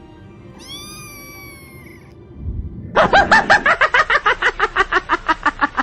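A kitten meows once, a single high call lasting about a second and a half, over faint background music. About three seconds in, a much louder, rapid run of short pitched sounds starts, about five or six a second.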